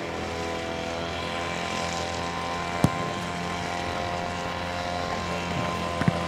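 Steady, even engine-like drone with a constant pitch, and a single sharp knock just under three seconds in and another near the end.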